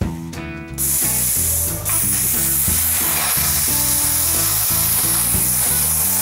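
Plasma cutter hissing steadily as it cuts through steel sheet, coming in about a second in with a brief break just before two seconds, over background music.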